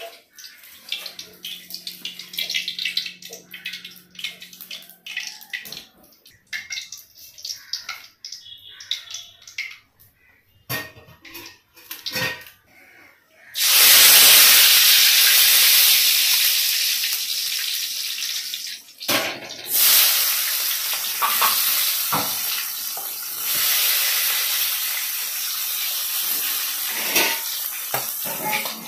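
Light metal clinks and taps against an aluminium kadai, then about halfway through a sudden loud sizzle of hot oil as curry leaves and other ingredients go into the pan. The sizzle drops out briefly and surges again, and goes on to the end under the scrape of a steel spoon stirring onions.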